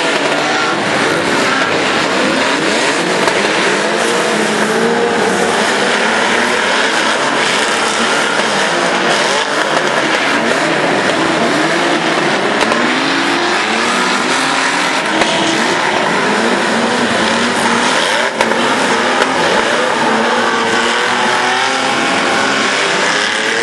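A pack of banger racing cars lapping the oval, many engines revving at once. Their overlapping notes rise and fall over each other, loud and dense.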